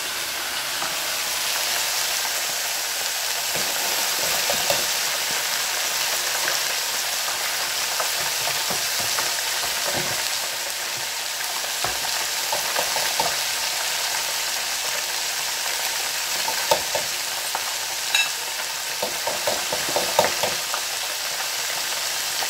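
Battered green-lipped mussels deep-frying in an electric deep fryer: the oil sizzles steadily with scattered crackles and pops, more of them in the second half. The sizzle comes from the water in the mussels and batter meeting the hot oil.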